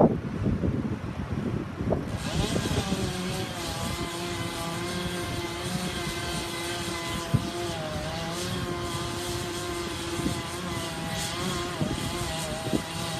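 An engine running steadily from about two seconds in, its pitch wavering a little; before that, gusty noise with a few knocks.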